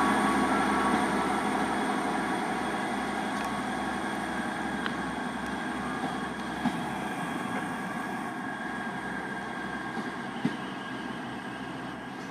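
ScotRail Class 158 diesel multiple unit pulling away, its diesel engine and wheels fading steadily into the distance, with a couple of faint clicks later on.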